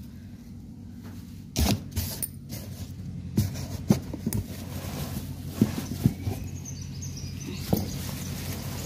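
Handling noise from seedling bundles in a cardboard box: scattered crinkles and taps of plastic wrapping and cardboard over a low steady hum.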